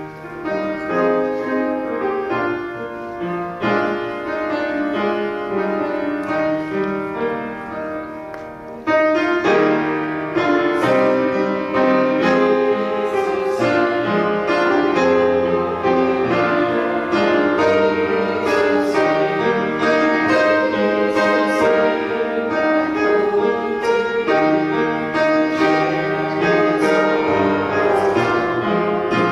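Piano playing a slow hymn tune, growing fuller and louder about nine seconds in.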